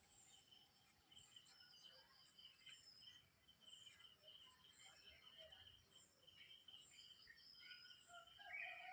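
Faint birdsong: several small birds chirping in short repeated high notes, with a louder, longer call coming in near the end.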